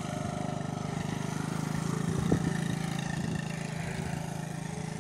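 Small three-wheeled ATV's engine running steadily at low speed while being ridden, with a short thump about two seconds in.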